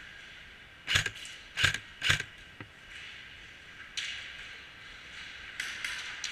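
Airsoft gun firing single shots: a few sharp clicks spaced irregularly, the loudest three in the first couple of seconds and fainter ones later, over a steady high hiss.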